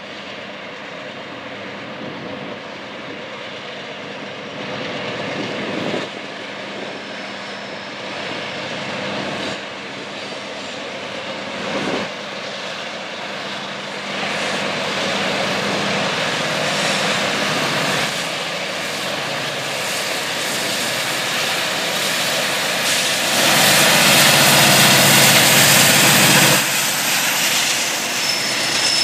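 Two diesel-electric freight locomotives working at full throttle (notch 8): an EMD SD70 with its 16-cylinder 710G two-stroke and a GE C40-8 with its 7FDL16 four-stroke. They approach and pass close below, the engine noise growing steadily louder and at its loudest for about three seconds near the end.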